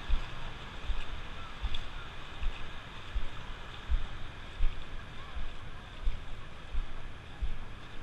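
Steady hiss of small surf washing up on the shore, with the walker's footsteps thudding on wet sand about every two-thirds of a second.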